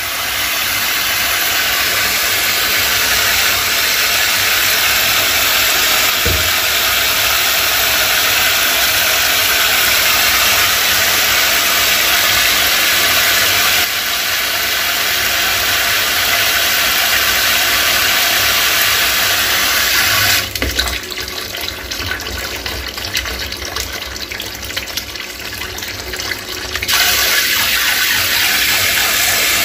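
Hot water from a kitchen faucet's multi-stream spray head pouring steadily into a stainless steel sink basin and down the drain, flushing grease from a clogged drain pipe. The rush drops noticeably for about six seconds past the middle, then returns to full.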